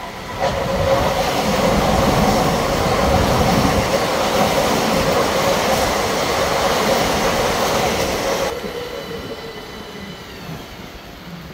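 ÖBB Cityjet (Siemens Desiro ML) electric multiple unit running past the platform, its wheels rushing on the rails under a steady electric motor whine. The sound swells in about half a second in, stays loud, then drops away suddenly about eight seconds in, leaving a faint falling whine.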